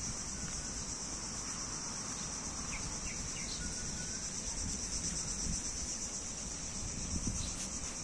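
Steady, high-pitched chorus of tropical insects shrilling without a break, with a faint fast pulse. A few faint short bird chirps sound over it, mostly in the first half.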